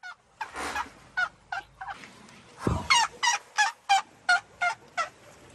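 Asian elephants chirping: about a dozen short, high, squeaky calls, some rising and falling in pitch. A low thump comes a little before the middle.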